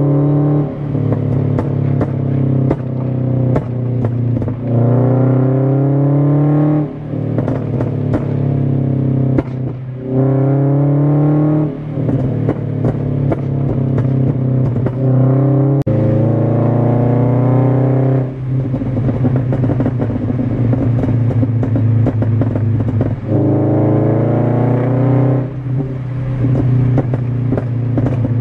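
Scion FR-S's 2.0-litre flat-four engine accelerating hard, heard inside the cabin: the pitch climbs through the revs and drops at each shift, about five times. Many sharp pops and ticks run throughout; the car is running a pop-and-flame tune.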